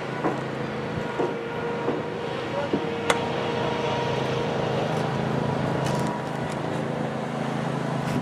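Steady low rumble of a vehicle engine or road traffic. About three seconds in there is one sharp pop, a baseball landing in a leather glove.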